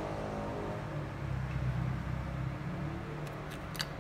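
Background music fading out within the first second, leaving a low steady hum. A few light clicks come near the end as the opened phone is handled.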